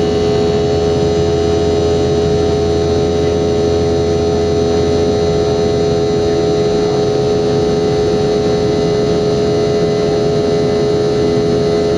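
Boeing 717's Rolls-Royce BR715 jet engines running steadily: a loud, even drone with a steady whine over a low rumble, the rumble easing slightly about halfway through.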